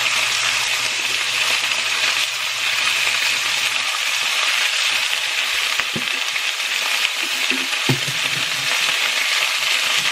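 Thin-sliced pork frying in hot canola oil in a cast-iron pot: a steady sizzling hiss. Two short clicks sound about six seconds in and again about two seconds later.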